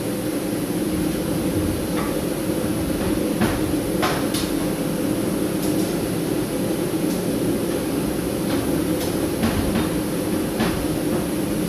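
Hammer striking hot 5160 spring steel at irregular intervals, about a dozen sharp blows, over a steady running noise from the forge.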